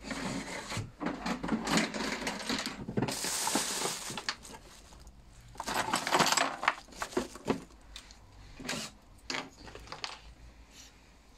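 Handling noise on a workbench: irregular rustling with many small clicks and knocks, in two stretches of a few seconds each, then a few short knocks near the end.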